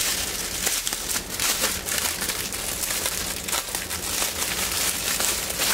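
Clear plastic bags of diamond-painting drills crinkling and crackling as they are handled and sorted.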